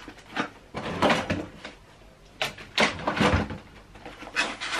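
Cardboard hair-straightener box being handled, giving a series of short scraping and knocking noises with brief gaps between them.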